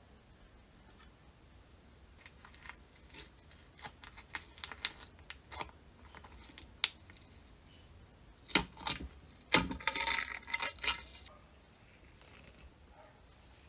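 Hands-on workshop handling of small parts: scattered light clicks and taps, two sharper knocks about eight and a half and nine and a half seconds in, then a second or so of scraping, rustling noise.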